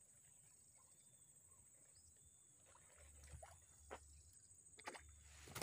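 Quiet outdoor ambience: a faint, steady, high-pitched insect drone. A few soft clicks and rustles come in the second half.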